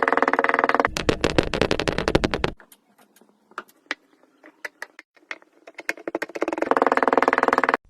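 Kinetic sand being crushed and cut, a dense crackling for about two and a half seconds, then only scattered ticks, then dense crackling again that stops abruptly near the end.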